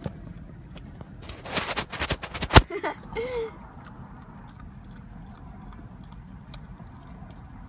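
A dog licking whipped cream from a paper cup, with faint wet smacking ticks, over a steady low car-cabin rumble. About one and a half to two and a half seconds in there is a burst of rustling and knocking, ending in a sharp click that is the loudest sound.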